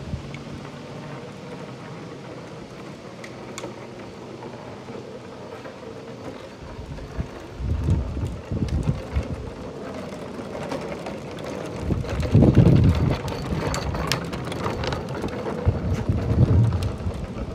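Hard plastic wheels of a child's ride-on toy car rumbling over asphalt, coming and going in several loud stretches.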